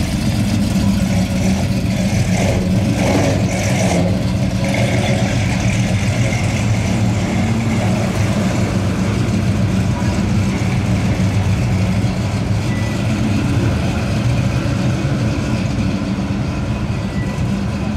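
V8 exhaust of a 1964 Pontiac muscle car at low speed, a steady deep rumble as the car pulls past and drives off.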